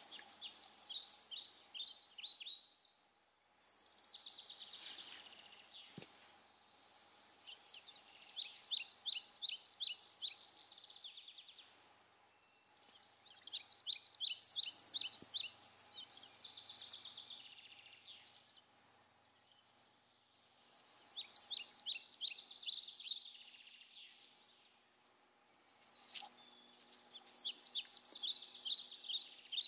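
A bird singing the same phrase over and over: a rapid run of sharp, falling notes lasting about three seconds, given five times about every six to seven seconds.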